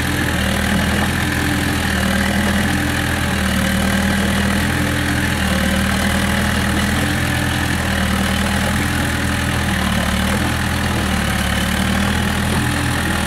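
Small crawler bulldozer's diesel engine running steadily under load as the machine crawls through deep, soft peat mud, its tracks sunk in the bog.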